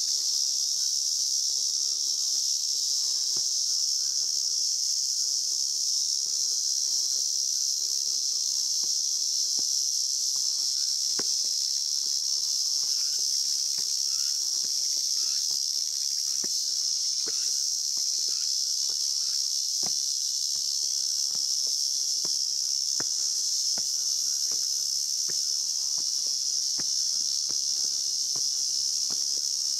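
A dense chorus of summer insects, a steady high-pitched drone that does not let up. Under it, faint irregular taps of footsteps climbing stone steps.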